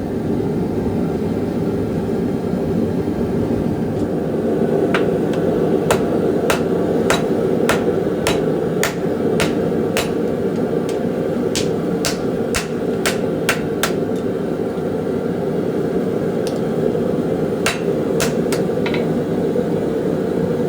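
Hammer blows on steel at the anvil, sharp ringing strikes at about two a second in runs with short pauses, over a steady rushing noise.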